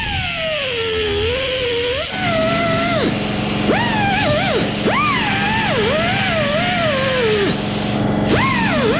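Background music: a bending, gliding lead melody over a steady low drone that comes in about two seconds in.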